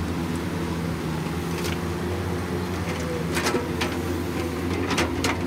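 Hydraulic excavator's diesel engine running steadily while it loads dirt into a dump truck, with several sharp knocks in the second half, loudest about three and a half and five seconds in.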